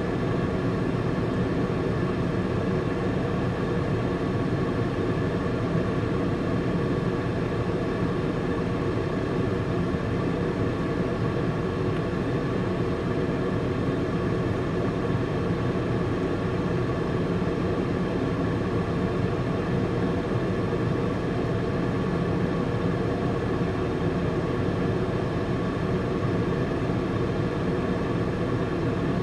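PDQ ProTouch touchless in-bay car wash running on a car in the bay: a steady, unchanging noise of its machinery, with a few faint steady tones over it.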